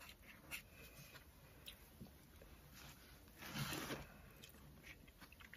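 Faint scratching of a felt-tip marker writing on sketchbook paper, with small ticks, and a brief louder rustle about three and a half seconds in.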